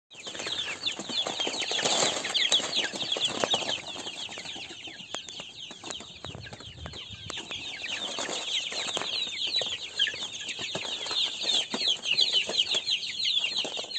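A large flock of young chicken chicks peeping constantly, with many short, high, falling cheeps overlapping.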